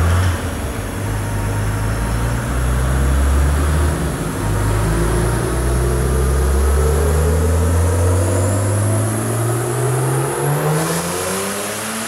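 Mercedes OM606 3.0-litre six-cylinder turbo diesel pulling hard in a Nissan Patrol on a chassis dyno during a power run: pitch jumps a few times in the first seconds, then the revs climb steadily under full load, with a faint high whine rising with them.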